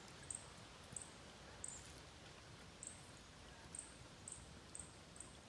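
Faint, short, high-pitched chirps from a small animal, about eight of them at uneven intervals, over a low background hiss.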